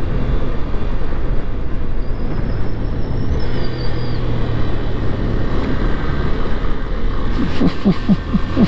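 Motorcycle engine running steadily while riding, under heavy wind rumble on the microphone.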